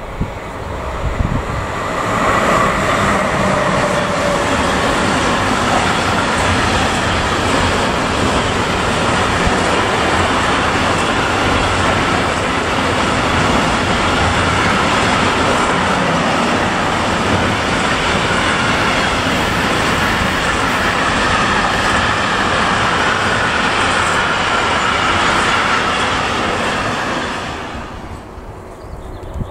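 Long electric-hauled intermodal freight train, truck trailers on pocket wagons, rolling past at close range: a steady noise of wheels on rails that builds about two seconds in and falls away near the end as the last wagon passes.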